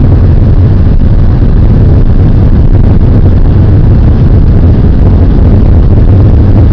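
Car driving, a loud steady low rumble of engine and road noise with no change in pace.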